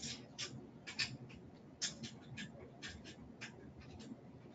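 Faint, irregular light clicks and scratches of a wheelchair caster being fitted by hand onto the rear frame, small metal parts ticking and scraping as they are handled and turned.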